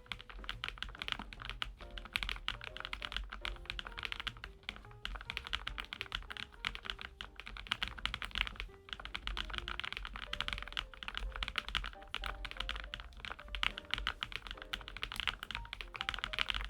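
Continuous fast typing on a Lofree Flow Lite low-profile mechanical keyboard with full-POM switches, a dense run of keystroke clicks. Soft background music plays underneath.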